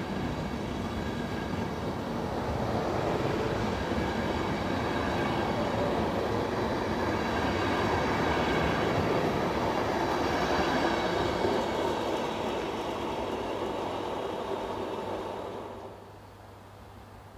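CFR Interregio passenger coaches rolling past as the train departs, wheels running on the rails with a steady rumble and a faint high ringing in the middle. The sound falls away suddenly near the end.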